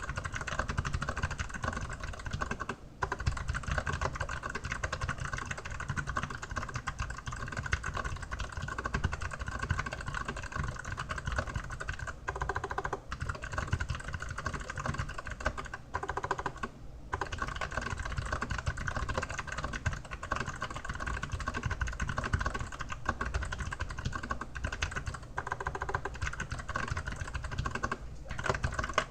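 Fast, continuous typing on an Archon AK87 mechanical keyboard with clicky Kailh Box White switches, a dense stream of key clicks broken by a few short pauses.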